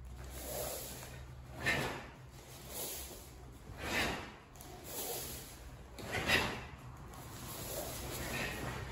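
Karate gis swishing and snapping as a group of karateka punch and block in unison through a kata, about six sharp swishes a second or so apart, the loudest about six seconds in, over a steady low hum.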